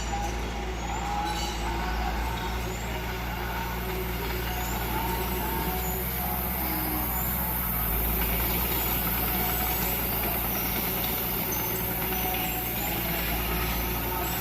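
Heavy diesel earthmoving machinery running steadily at work, the engine note holding even throughout.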